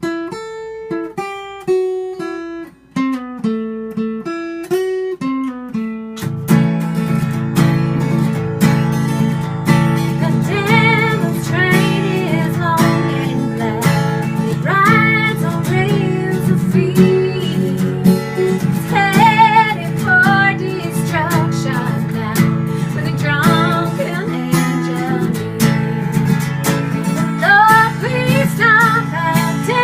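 Acoustic guitar picked note by note over a descending bass line, then strummed in a steady full rhythm from about six seconds in.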